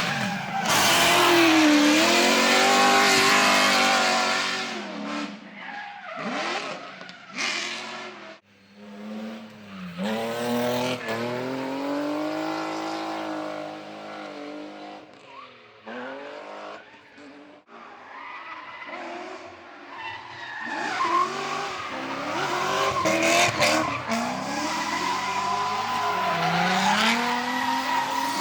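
Drift cars being driven sideways: engines revving high and dropping back again and again over the hiss of tires skidding. The sound swells and fades as cars pass, dipping briefly about a third of the way in and again just past halfway, then building toward the end.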